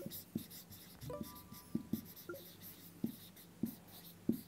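Marker pen writing on a whiteboard: a run of short scratching strokes and light taps as words are written.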